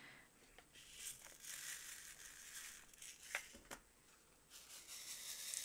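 Diamond painting drills, tiny resin rhinestones, poured from a small plastic box into a 3D-printed plastic tray, a faint pattering rustle. Two light clicks come about three and a half seconds in. Then the tray is shaken so the drills rattle across its ridges and separate.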